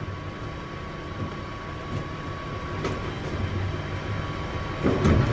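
Diesel engine idling steadily with a faint constant high whine over it, a few light clicks, and a louder low knock and rattle about five seconds in.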